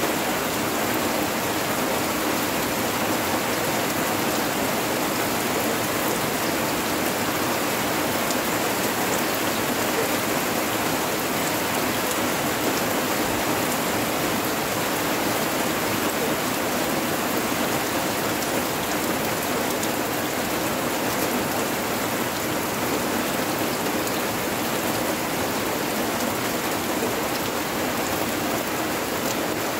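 Steady rain falling, an even hiss with no breaks: the first rain of Typhoon Noru (Karding) arriving.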